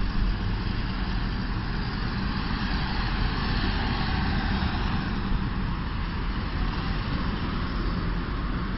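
Steady road traffic on a city street, cars and buses going by as a continuous rush with a deep rumble underneath and no single event standing out.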